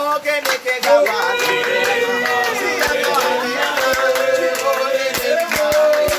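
Men singing together to a steady held note, with hand claps scattered through.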